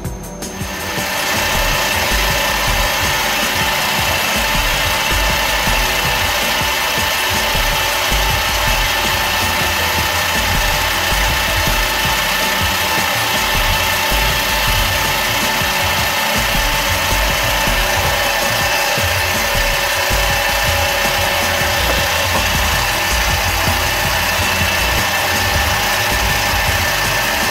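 Small benchtop metal lathe running with a brass workpiece spinning in the chuck: a steady motor and spindle whine over a hiss.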